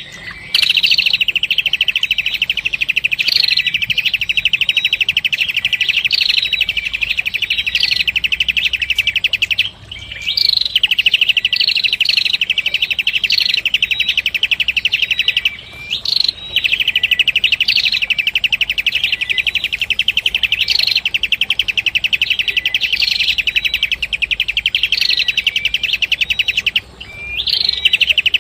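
Prenjak kepala merah (a small Indonesian songbird) singing a fast, unbroken chattering trill, with a higher up-slurred note about once a second. The song stops briefly three times.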